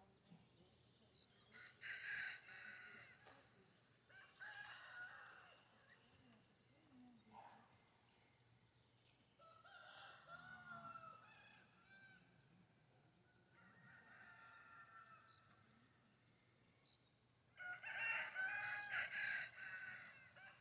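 Rooster crowing about five times, one crow after another, the loudest near the end.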